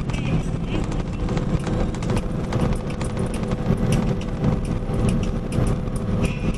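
Box truck on the road, heard from the cab: steady engine and road rumble with a rapid, irregular clatter of clicks and rattles.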